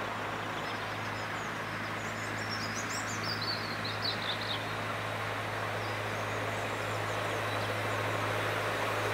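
A miniature railway locomotive runs steadily as it approaches, a low even hum growing slightly louder. Birds chirp a few times about three to four seconds in.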